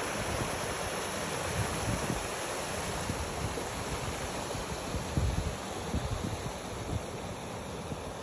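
Creek water rushing steadily over a small rock cascade, with gusts of wind buffeting the microphone, the strongest about five seconds in.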